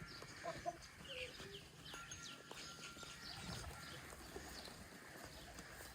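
Birds chirping over and over in short, quick downward-sliding notes, fairly faint, with a few brief low calls about half a second in.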